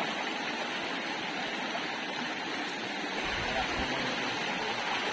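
Shallow rocky stream running fast over stones, a steady wash of rushing and splashing water.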